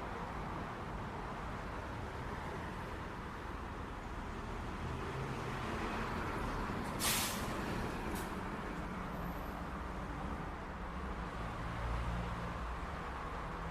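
City street traffic with a steady rumble of passing vehicles. About seven seconds in there is a short, sharp hiss of released air, and a fainter one follows a second later. A heavier low rumble swells near the end.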